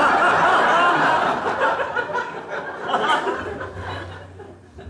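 Studio audience laughing loudly, the laughter dying away over the last couple of seconds.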